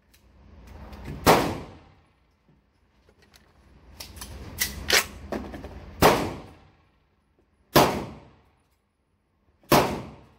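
Sharp 12-gauge shotgun reports and metallic clacks of the action in an indoor range: four loud cracks a couple of seconds apart, each with a short ringing echo, with lighter clicks and handling rustle between them.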